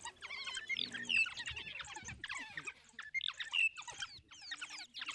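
African wild dogs twittering: a dense run of rapid, high-pitched chirps and squeaks, many short calls overlapping.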